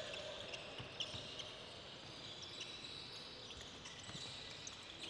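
Faint footsteps, hops and sneaker scuffs on a hardwood sports-hall floor as players hop on one leg, heard as scattered light taps.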